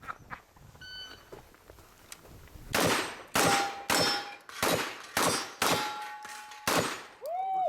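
A short beep about a second in, then a string of seven rapid shotgun shots at steel targets, most about half a second apart, with some hits followed by the ring of struck steel.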